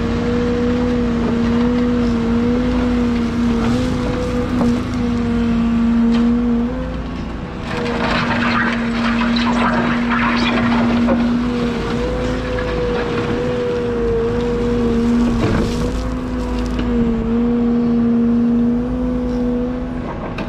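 Liebherr A913 Compact excavator's diesel engine and hydraulics running with a steady droning hum that wavers slightly in pitch as the Steelwrist grading beam is worked. From about eight to eleven seconds in, a rough hissing scrape of the grading beam dragging through crushed stone rises over it.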